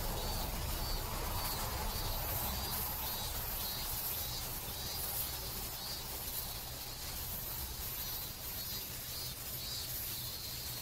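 Outdoor field ambience: insects chirping in short high pulses repeating about twice a second, over a steady low rumble.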